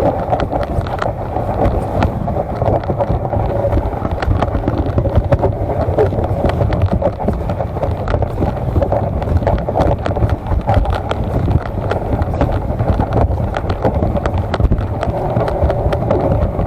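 A vehicle running steadily, with wind buffeting the microphone and scattered clicks and knocks.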